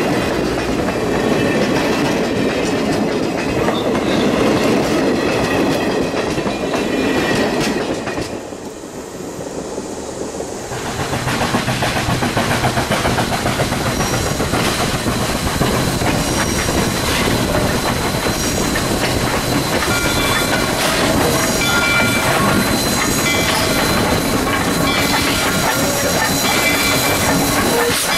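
Passenger coaches rolling past close by, steel wheels clattering over rail joints. After a brief quieter gap the train is heard again: a steam locomotive hauling its coaches along the line, with steady wheel-and-rail running noise and a few short high squeals or tones in the second half.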